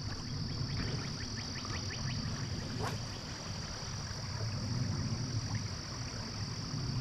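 Shallow trout-stream riffle flowing, with a steady high-pitched buzz over it. About a second in there is a quick run of faint ticks.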